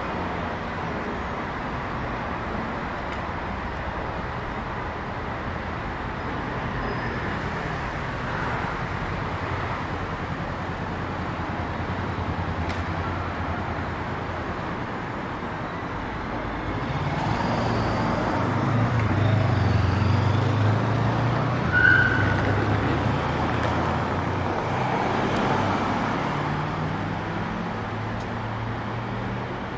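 Road traffic: cars passing along the street, a steady rush of engines and tyres. In the second half a low engine hum swells for several seconds as a vehicle passes close, with a short high squeak in the middle of it.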